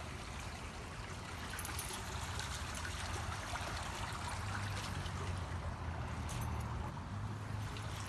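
Shallow water trickling steadily over a wet, muddy gravel path, with a low hum underneath that grows stronger about halfway through.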